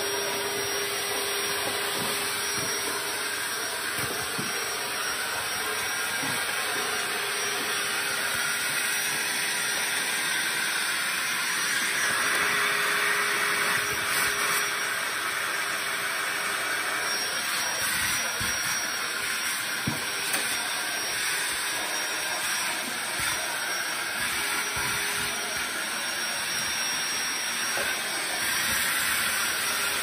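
DeWalt DCV501HB 20V cordless handheld vacuum running steadily, drawing air through its hose and extension wand: an even rushing hiss over a constant motor tone, with a few faint ticks now and then.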